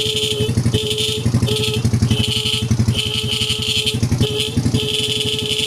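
A motorcycle's electric horn honks about seven times, short and long presses, over the engine idling. No battery is fitted, so the horn runs straight off the bike's charging system and sounds unclear, and needs fixing.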